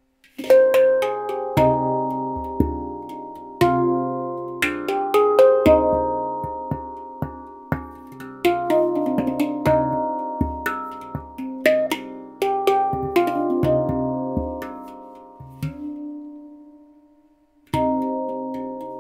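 Stainless-steel Baopan handpan (pantam) in C minor, played with the fingers: struck notes ring out one after another, mixed with deep low notes. The playing starts about half a second in and pauses near the end on a single dying note, then picks up again.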